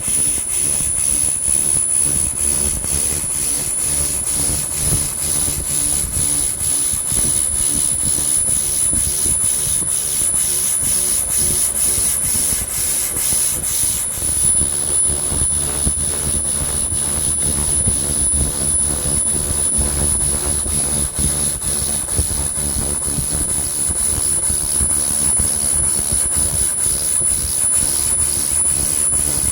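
300-watt pulsed laser cleaner running a spiral scan pattern over a rusty bell, ablating the rust: a steady high-pitched whine over a crackling hiss, with a low rumble underneath.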